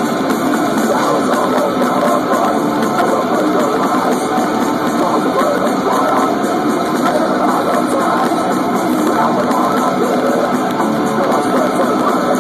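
Death metal band playing live, with loud distorted electric guitars and drums, heard through a phone's microphone in a loud, compressed, muddy mix.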